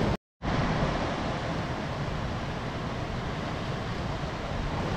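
Sea surf washing and surging among shoreline rocks, a steady rushing wash. The sound drops out completely for a moment near the start.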